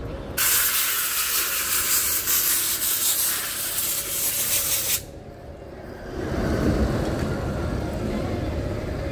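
A loud, steady hiss, like a jet of air or spray from a nozzle, starts suddenly about half a second in and cuts off just as suddenly some four and a half seconds later. A low rumble of street traffic then builds.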